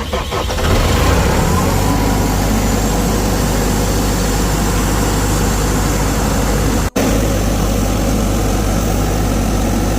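The four-cylinder John Deere 4045 diesel engine of a 2016 Atlas Copco XAVS 375 portable air compressor, just started: it picks up over the first second, then runs steadily. The sound drops out for an instant about seven seconds in.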